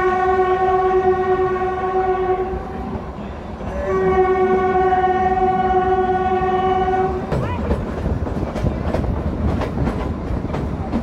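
Kalka–Shimla narrow-gauge toy train sounding two long, steady horn blasts as it departs. After the second blast, about seven seconds in, the wheels begin clicking over the rail joints as the train gets moving.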